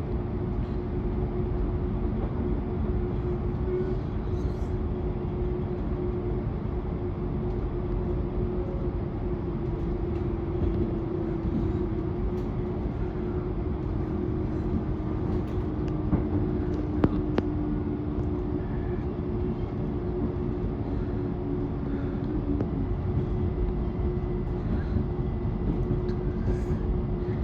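Electric passenger train running on the line: a steady rumble with a humming tone, joined through the middle by a second tone that slowly falls in pitch, and a single sharp click about seventeen seconds in.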